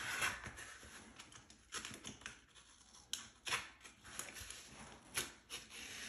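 Box cutter with a fresh blade slicing through a fabric-faced waterproofing membrane, a few short, sharp scratching cuts spread across several seconds.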